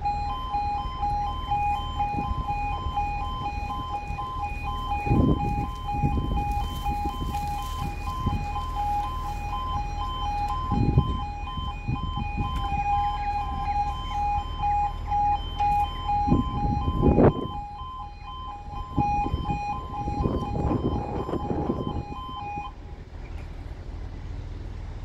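Level-crossing audible warning alarm sounding as the barriers lower: a pulsing two-tone alarm repeating steadily, which stops near the end once the barriers are down. Beneath it is a low road-traffic rumble, with a loud knock about two-thirds of the way in.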